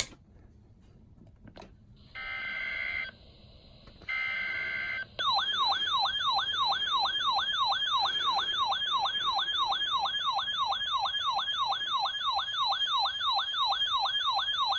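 Weather alert radio activating for a flash flood warning. Two one-second bursts of screechy SAME digital header data come first, then from about five seconds in the radio's built-in alert siren sounds: a loud warbling tone sweeping up and down about three times a second.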